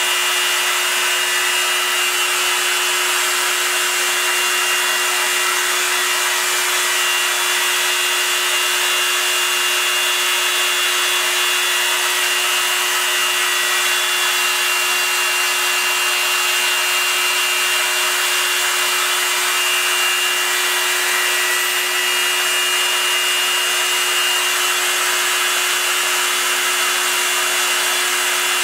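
Proxxon MF 70 mini milling machine's spindle motor running steadily while a small cutter mills aluminium: a steady hum and high whine over a continuous hissing cutting noise.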